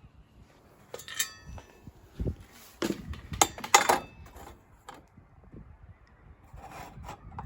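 Intermittent metallic clinks, knocks and scrapes of tools and metal being handled, with a short ringing clank about a second in and a louder cluster of clatter around three to four seconds in.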